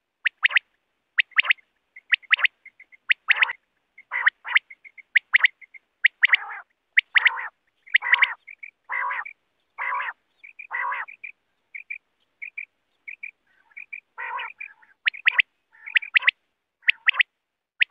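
Quail calling over and over: short, sharp, high calls in quick groups. Between about six and eleven seconds in, a longer, fuller call comes roughly once a second.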